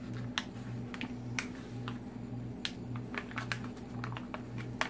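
Clear plastic cover film on a diamond painting canvas crinkling and crackling as it is peeled back by hand, with many small sharp clicks, over a low steady hum.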